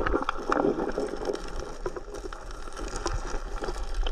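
River water heard through a submerged camera: a muffled rushing murmur over a low rumble, with scattered sharp clicks throughout.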